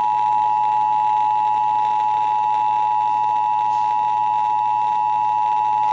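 Emergency Alert System two-tone attention signal: two steady pitches close together sounding at once as a single harsh, unbroken tone. It announces that an emergency alert message, here a severe thunderstorm warning, is about to follow.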